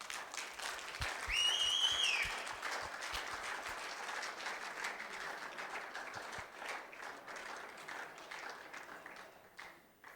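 Audience applauding, with a short whistle about a second in; the clapping dies away near the end.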